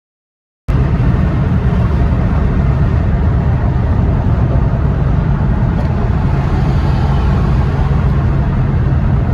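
Steady low rumble of a moving car's road and engine noise. It cuts in abruptly after a moment of silence.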